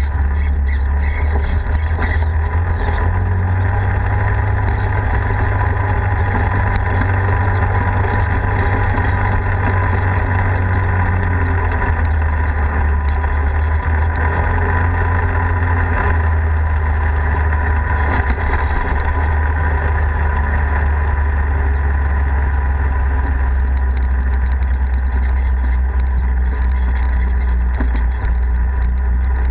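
Polaris RZR 4 side-by-side's engine running steadily under way on a dirt road, a loud, even drone heavy in the low end, with only slight changes in engine speed, heard from a camera on the vehicle.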